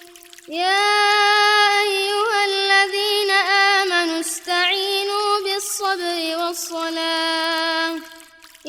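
A solo voice chanting Qur'an recitation in a melodic tajwid style, holding long notes with ornamented turns. There is a short breath pause just as it begins and another near the end.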